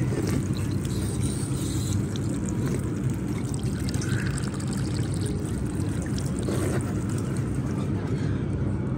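Water running from a chrome drinking tap, splashing onto a perforated steel drain grate and over a cupped hand, with a steady low rumble underneath.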